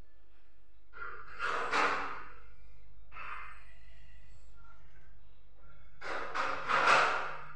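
Breathing close to a phone's microphone: a few noisy breaths with no voice in them, about a second in, again around three seconds, and a longer, louder run of breaths around six to seven seconds, over a steady low hum.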